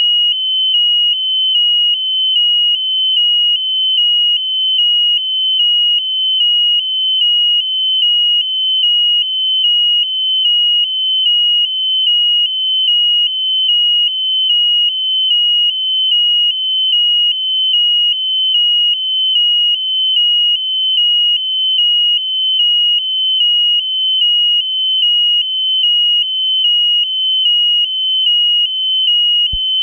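An electronic beeper on the balloon payload sounds a steady high-pitched beep, repeating evenly about one and a half times a second.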